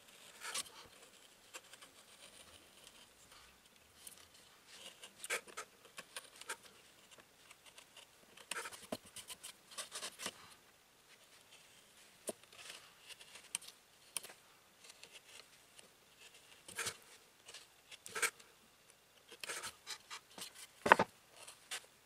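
Hand carving chisels cutting and paring wood in short, irregular scraping strokes with sharp clicks as the blade bites and breaks off chips. The loudest click comes near the end.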